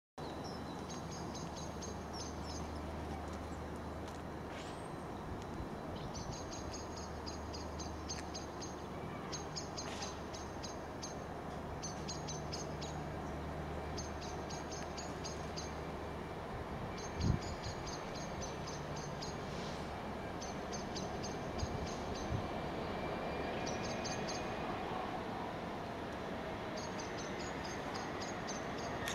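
A songbird singing short phrases of rapid high notes every couple of seconds, over a steady background rumble with a low hum that comes and goes; a single sharp knock about two-thirds of the way through.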